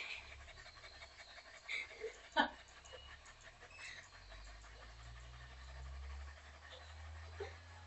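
Dog panting faintly with its tongue hanging out. A sharp click comes about two and a half seconds in, and a low rumble builds from about halfway.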